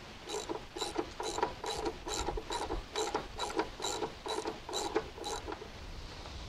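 Ratchet wrench clicking through about a dozen strokes, roughly two a second, turning the bandwheel tracking bolt of a band sawmill to set the blade tracking. It stops about five and a half seconds in.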